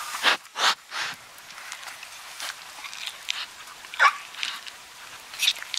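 Water buffalo calf sniffing and blowing air into the microphone at close range: a quick run of three short breaths in the first second, then single breaths about four seconds in and near the end.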